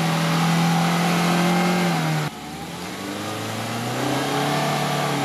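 Suzuki Grand Vitara's engine revving hard, held high as the 4x4 struggles through deep mud ruts. The throttle is cut suddenly a little over two seconds in, then the engine revs up again.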